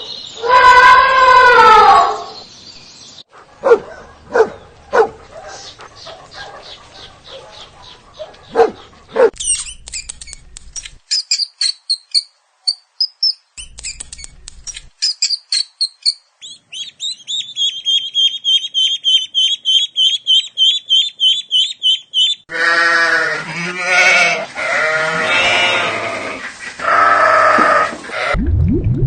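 A run of different animal sounds one after another. It opens with a pitched call falling in pitch, then a series of clicks and high chirps, then a long rapid high trill, and near the end several bleating calls.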